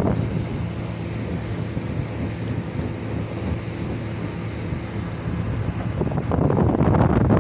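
Motorboat under way: its motor runs steadily under a rush of water along the hull and wind buffeting the microphone, and the noise grows louder about six seconds in.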